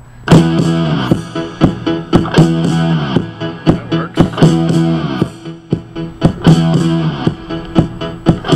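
Music with guitar and a steady beat from a portable CD player, played through the speakers of an Emerson CTR-965 boombox. It starts abruptly just after the beginning.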